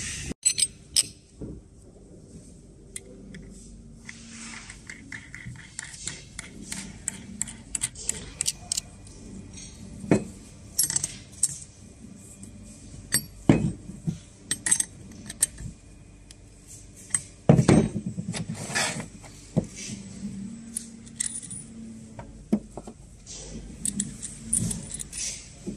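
Steel hardware clinking and knocking as a surge arrester's end fitting is assembled: a 19 mm combination wrench, M12 nut, washer and steel end cover tapping against each other and against the wooden table as the nut is run on and tightened. Irregular light clinks, with a few heavier knocks.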